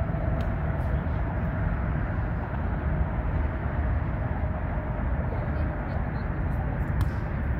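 Steady low rumble of outdoor city ambience, with a couple of faint clicks about half a second in and again near the end.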